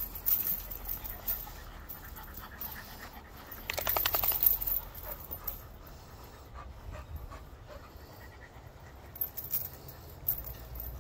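American pit bull terrier panting, with a brief rapid rattling burst about four seconds in.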